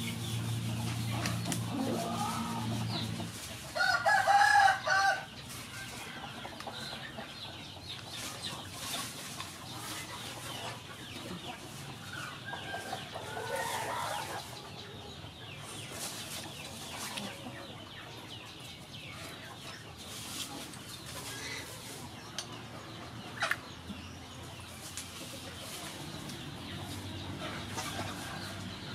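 Chickens: a rooster crows once, loudly, about four seconds in, and another weaker fowl call follows around twelve to fourteen seconds.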